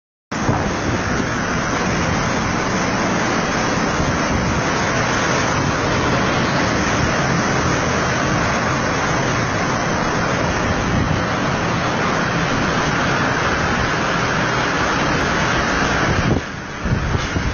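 Strong hurricane wind blowing hard across the microphone: a dense, steady rushing noise that starts suddenly and dips briefly near the end.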